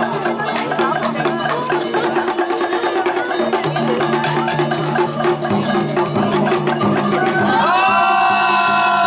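Live Vietnamese traditional ensemble music: rapid clicking percussion over a steady low melody line. Near the end a long held note slides up and enters over it.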